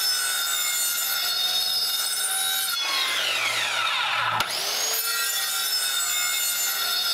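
Ryobi circular saw running and cutting a row of shallow kerfs, set 3/4 inch deep, across a board for a half-lap joint. About three seconds in, its whine falls away in pitch as the motor winds down. About a second and a half later it starts up again.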